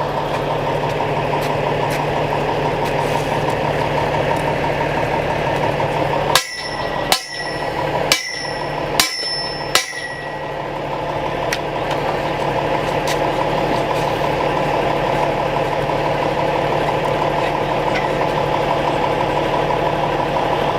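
Pump truck engine running steadily. About six seconds in come five sharp metallic strikes, a little under a second apart, each with a brief ringing tone.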